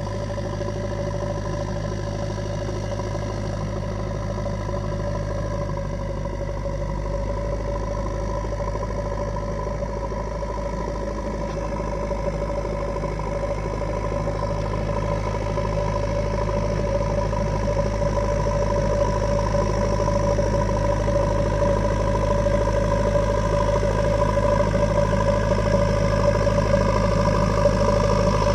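Diesel engine of a JCB 3DX backhoe loader running steadily, growing gradually louder through the second half.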